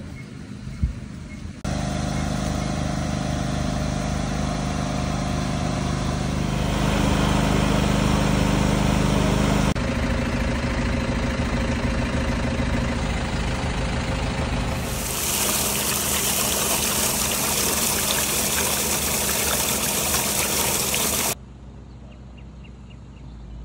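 Engine of a civil-protection emergency truck idling steadily, a couple of seconds in. About two-thirds of the way through, a loud, even rushing noise takes over for several seconds, then drops away, leaving a quieter background.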